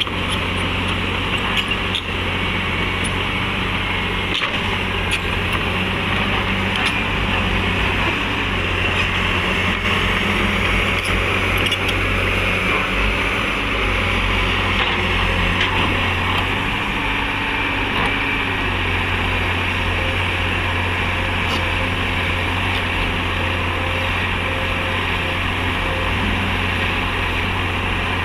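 Heavy diesel engines of an excavator and dump trucks running steadily as the excavator loads soil into the trucks.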